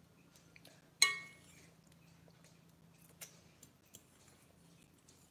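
One sharp clink of kitchenware about a second in, ringing briefly, then quiet with a few faint ticks and clicks.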